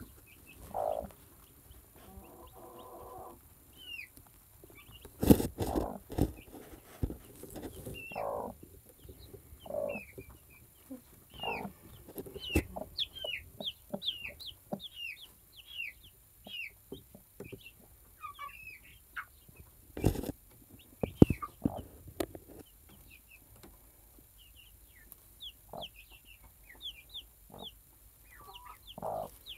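Newly hatched buff Cochin chicks peeping, many short falling cheeps, under a broody Cochin hen who gives low clucks, mostly in the first half. A few sharp loud knocks about 5 s and 20 s in.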